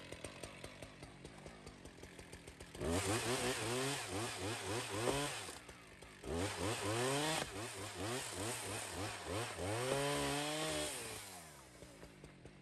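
Husqvarna two-stroke chainsaw idling, then opened up about three seconds in and cutting through the trunk, its pitch sagging and recovering again and again under load. It eases off briefly around the middle, cuts again, and drops back to idle near the end.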